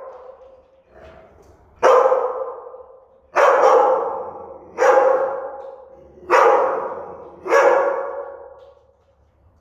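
Mastiff-mix dog barking: five loud barks about a second and a half apart after a quieter one near the start, each trailing off in the room's echo. This is the barking of a fear-aggressive dog.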